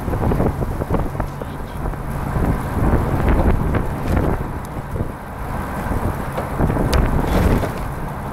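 Wind buffeting the microphone of a camera riding on a recumbent trike moving at speed: a heavy, gusting rumble, with a sharp click about seven seconds in.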